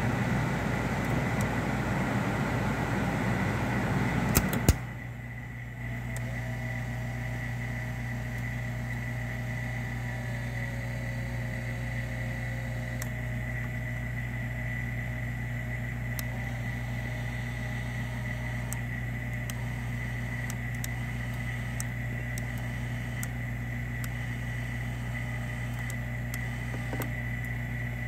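1985 Jaguar XJS climate-control system running: a loud rush of air for the first few seconds, which stops with a couple of clicks. After that there is a steady hum with a faint, wavering motor whine as the servo is run to move the flaps toward heat.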